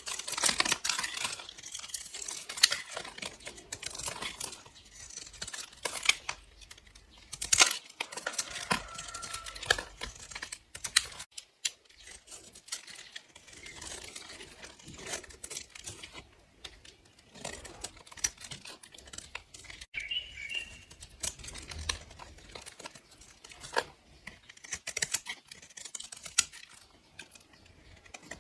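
A blade cutting through dry bars of soap: crisp crunching and crackling made of many small clicks, coming in bursts with quieter gaps between.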